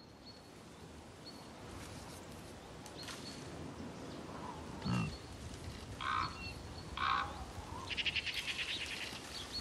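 Winter forest with European bison moving through snow: a short low animal sound about five seconds in, two short crunches soon after, and thin high bird calls over a faint steady background. Near the end comes a quick rattling run of rapid pulses.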